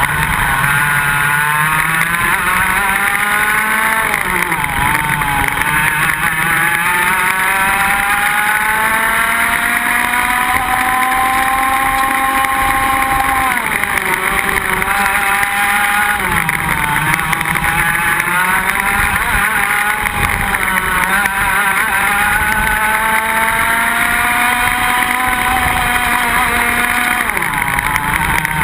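Iame X30 125cc two-stroke kart engines at race pace. The pitch climbs slowly along each straight and falls sharply whenever the throttle is lifted for a corner, several times.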